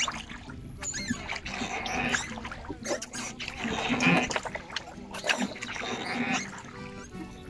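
Rowing a metal rowboat: the oars creak and knock in their pin oarlocks and the blades splash in the water, over and over with each stroke.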